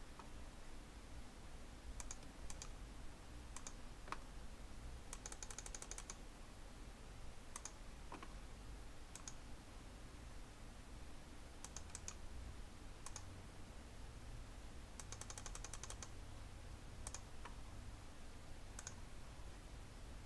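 Faint clicking of a computer mouse and keyboard: single clicks every second or so, with two quick runs of rapid clicks about five and fifteen seconds in.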